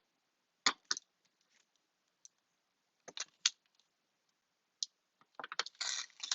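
Scissors snipping in a few short, separate cuts, then a denser run of rustling and crackling near the end.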